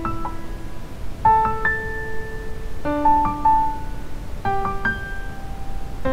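Slow keyboard music with a piano-like sound: a new chord about every second and a half, each a held low note with a few quick higher notes struck over it.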